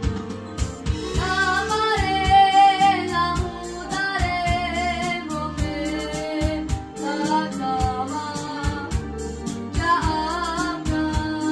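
A song plays: a singing voice in wavering, ornamented phrases of a few seconds each over an instrumental backing with a steady, even beat.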